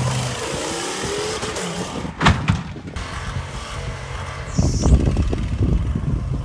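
Ford F250 Super Duty's V10 gas engine revving as the truck is driven hard over rough dirt, its pitch climbing in the first second. A loud bang comes about two seconds in, then a longer burst of heavy knocks about five seconds in.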